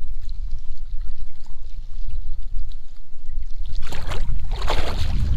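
Water splashing briefly about four seconds in as a hand-held striped bass is released and kicks away, over a steady low rumble.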